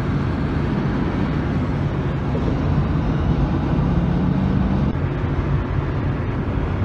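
Steady road noise inside a moving pickup truck's cab, with a low hum underneath.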